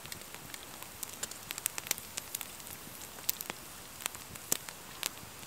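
Campfire crackling: irregular sharp pops and ticks over a steady low hiss.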